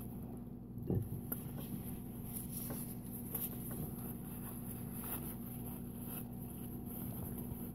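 Faint mouth sounds of chewing a bite of turkey sandwich, then soft rustling of a paper napkin as hands are wiped, with scattered small clicks over a steady low hum.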